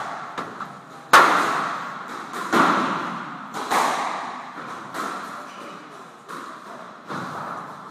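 Squash rally: about seven sharp smacks of the ball off rackets and walls, roughly one a second, each ringing out in the echoing enclosed court. The loudest hit comes a little over a second in.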